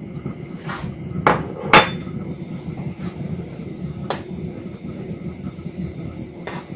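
A metal spoon clinking against a small dish and the rim of an enamel soup pot a handful of times, the sharpest strikes about a second and a half in, as spice is tapped off and the soup is stirred. A steady low hum runs underneath.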